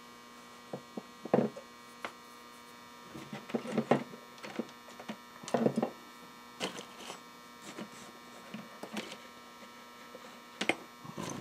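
Scattered light clicks and knocks of wires and a small aluminium heat sink with transistors being handled and set down on a wooden workbench, over a steady electrical hum.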